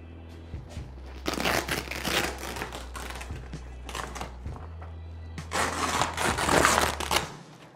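Velcro ripping apart and softbox fabric rustling as a diffuser panel is peeled off the softbox. It comes in two crackly bursts, the first about a second in lasting nearly two seconds, the second at about five and a half seconds.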